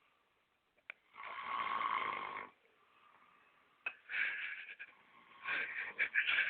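A sleeping man snoring loudly: one long rasping snore just after a second in, then shorter, choppier snores in the second half.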